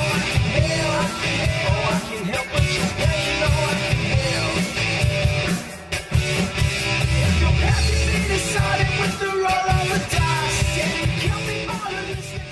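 Recorded punk-style rock music with drums and a singing voice, easing off slightly near the end.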